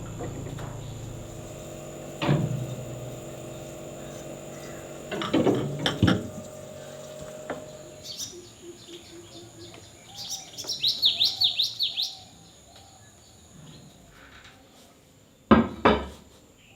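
Several sharp knocks and clatters, a few seconds apart, with a bird calling in a quick run of high chirps about ten seconds in.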